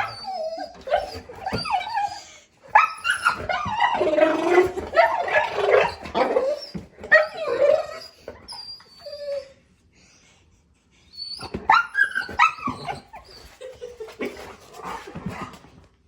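A golden retriever's chattering vocal 'talk' at a bird seen outside: a long string of varied whines and yips that rise and fall in pitch. There is a pause of about a second and a half past the middle before it starts again.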